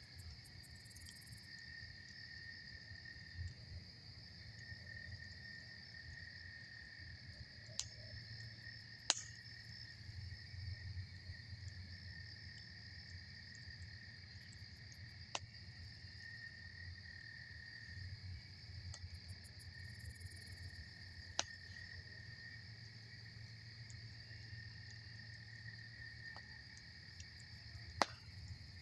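Campfire crackling with about five sharp pops of burning wood, the loudest about a third of the way in and near the end. Night insects trill steadily in two high tones throughout, over a low steady rumble.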